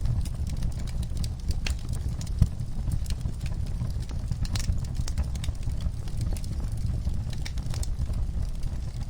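Wood fire in a fireplace crackling: irregular sharp pops and snaps over a steady low rumble, with one louder pop about two and a half seconds in.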